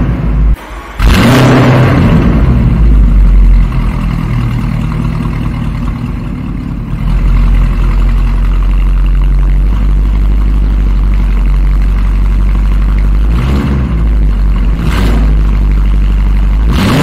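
Mansory Venatus Lamborghini Urus's 4.0-litre V8 engine running loud. It is revved about a second in, settles to a steady idle, and is revved twice more near the end.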